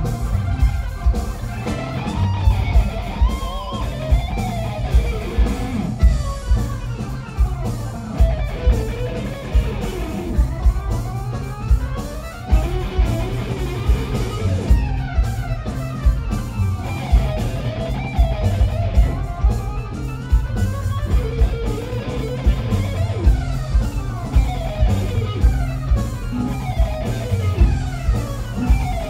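Live rock band playing an instrumental passage: lead electric guitar with bent, wavering notes over bass guitar and a steady drum-kit beat, with no singing.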